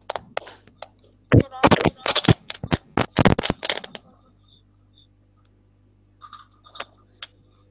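A quick run of sharp clicks, knocks and scrapes from something being handled right against a microphone, heard over an online video call. It lasts about two and a half seconds, starting a second or so in, and a few faint taps follow near the end.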